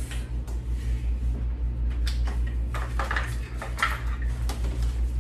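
Plastic clicks and knocks of car-seat adapters being unclipped from a Valco Baby Snap Duo Trend double stroller frame and handled, with several sharp knocks between about two and four and a half seconds in, over a steady low hum.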